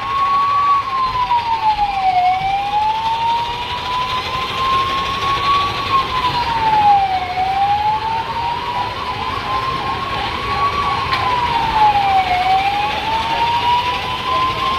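Siren wailing in a slow rise-and-fall cycle: the pitch sinks over about a second and a half, then climbs back over about three seconds, repeating roughly every five seconds.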